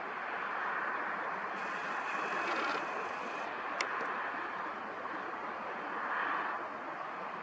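Steady outdoor background hiss, even and without a pitch, with a single sharp click a little past halfway.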